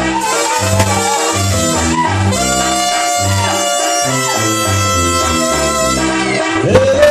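Tamborazo brass band playing live: trumpets and trombones over a steady low beat from the tambora bass drum. Near the end a note slides up into a long held tone.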